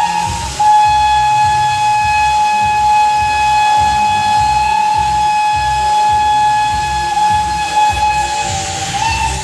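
Steam locomotive's whistle blowing one long, steady note, cut off briefly just after the start, wavering slightly in pitch and stopping near the end. Music with a pulsing low beat plays underneath.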